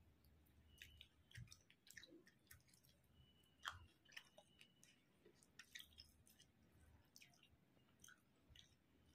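Faint close-up chewing of a mouthful of basmati rice and chicken curry, with soft wet mouth clicks and smacks at irregular intervals.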